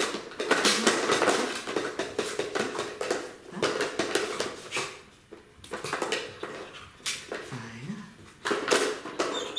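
A German Shepherd puppy working a dog puzzle toy with nose and paws: the toy's lids and blocks knock and clack against the board in quick, uneven clicks and rattles.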